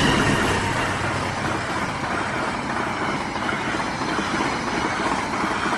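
Passenger train carriages rolling past on the rails, a steady rumble and rail noise that eases slightly, following the locomotive.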